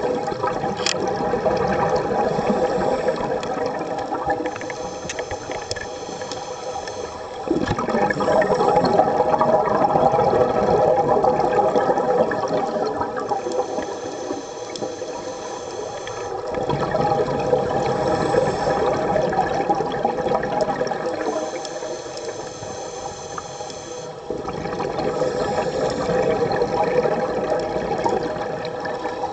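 Scuba regulator breathing heard underwater: a thin hiss on each inhale, then a long rush of exhaust bubbles on each exhale, repeating slowly about every eight seconds.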